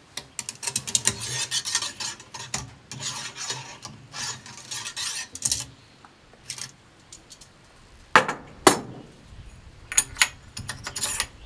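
Metal scraping, rubbing and clinking while a muzzleloading rifle is being reloaded, with a few sharp knocks from about eight seconds in.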